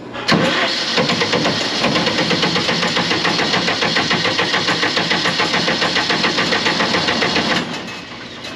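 Caterpillar 3054 (Perkins) four-cylinder diesel engine being cranked by its starter motor, with an even beat of about five or six compression pulses a second. It cranks for about seven seconds, then stops abruptly. This is the first crank after its fuel injection pump and governor were replaced.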